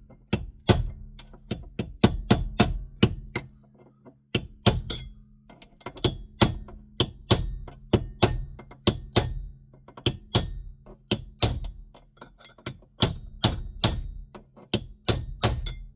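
Ball-peen hammer striking a steel punch again and again, about two to three sharp metallic blows a second with short pauses. The blows shock-load a stuck steering wheel held under a puller's tension, to break it free of its shaft. A steady low hum runs underneath.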